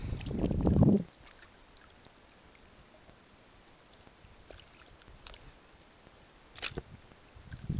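Shallow water sloshing and splashing as a person wades across a coral reef flat, loud for about the first second, then mostly quiet with a few faint ticks and one sharper click near the end.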